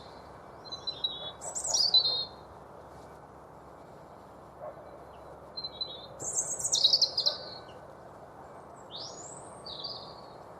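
European robin singing its territorial song: three phrases of high, thin, warbling notes, each a second or two long, with pauses between them.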